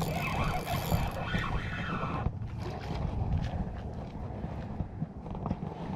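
Wind buffeting the microphone in a steady low rumble, over the whir of a spinning reel being cranked to bring in a fish. The reeling stops a little over two seconds in.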